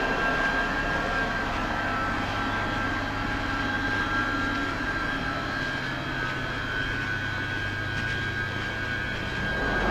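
London Underground train giving a steady electrical whine over a low hum, with a short louder rush near the end.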